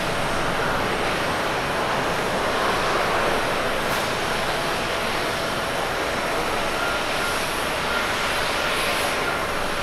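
Jet engines of a Boeing 787-8 airliner during its landing rollout on a wet runway: a steady, even rush of engine and air noise.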